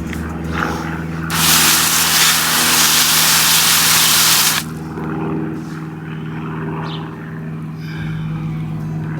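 Water spray hissing over rocks being washed off, a single burst of about three seconds that starts a second in and cuts off suddenly. A steady low hum continues beneath it throughout.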